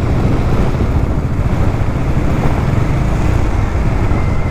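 Bajaj Dominar motorcycle ridden at speed down a mountain road, heard as steady wind rush and rumble on the rider's microphone with the engine underneath.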